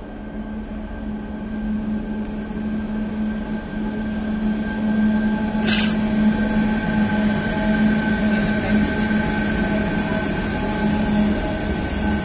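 An Indian Railways WAG-12B electric freight locomotive passing close by with its freight wagons: a steady low hum with higher whining tones, growing louder as it draws level. A brief sharp hiss comes a little before halfway.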